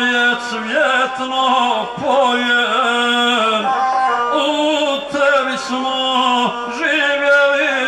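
A man singing a Serbian epic song in the chanted gusle style, accompanying himself on the gusle, its single horsehair string bowed under his voice. A steady low note from the instrument runs beneath the wavering sung line.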